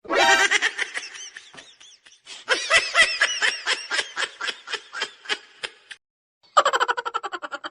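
High-pitched giggling laughter in rapid ha-ha pulses, about five a second. It comes in three runs, with a short break about two seconds in and another about six seconds in.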